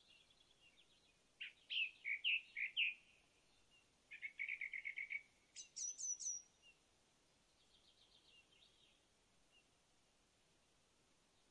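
Songbird singing over faint steady background hiss: a few loud down-slurred notes, then a quick even trill, then a short run of high thin notes, between about one and a half and seven seconds in, with faint twittering before and after.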